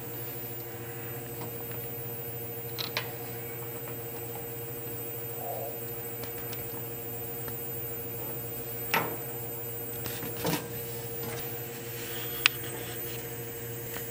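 Steel workholding parts (a serrated step block, threaded stud and strap clamp) being handled and set in place on a mill table: a few short metal clinks and knocks, the sharpest near the end, over a steady hum.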